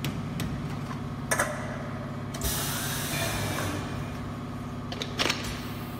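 Compact isobaric can-filling machine running with a steady hum. About two and a half seconds in, a hiss of released air or gas lasts over a second. Sharp metallic clicks and knocks of aluminium cans being handled come around it.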